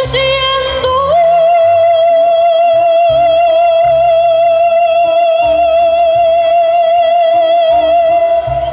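A woman singing live into a microphone over instrumental accompaniment: about a second in she rises to one long high note with vibrato and holds it for some seven seconds, letting it go near the end.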